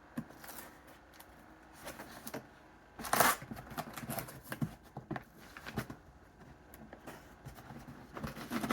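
Scattered rustles, scrapes and light knocks of a gift box and its packaging being handled and pulled open, with a louder rustling scrape about three seconds in.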